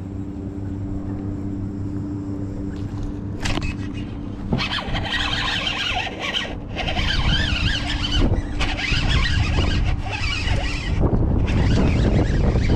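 Steady low hum of an electric trolling motor. From about four seconds in, a louder whirring and scraping of a baitcasting reel being worked and cast right by the microphone, with wind noise.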